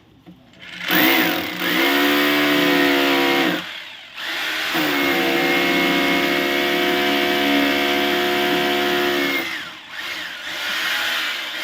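Hilti TE-2 rotary hammer drill running in two bursts, about three seconds and then about five seconds, with a short stop between; its motor gives a steady whine that settles after spinning up.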